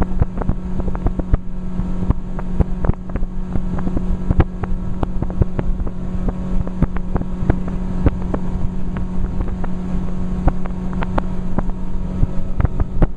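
Boat motor running steadily at one even pitch, with frequent sharp knocks scattered throughout.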